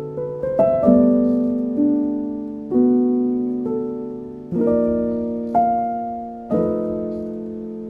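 Slow, calm piano music: soft chords struck about once a second, each left to ring and fade.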